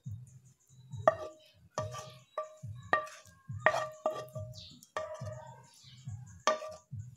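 Wooden spatula scraping fried corned beef out of a nonstick frying pan and knocking against the pan and a small ceramic saucer: about eight sharp taps at uneven intervals, each ringing briefly.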